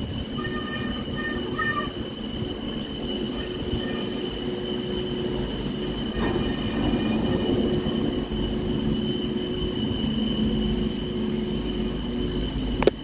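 Detachable chairlift terminal machinery running as a chair rolls through and out of the terminal: a steady mechanical rumble and hum, with a few short high squeaks in the first two seconds, a swell in the noise about six seconds in, and a sharp click near the end.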